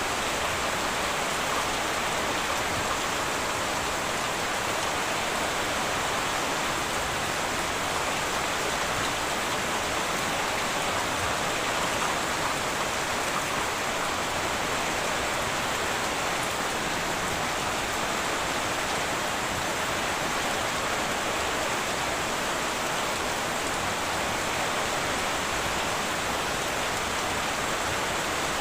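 Heavy rain falling steadily on a tin roof, a dense even patter with no breaks.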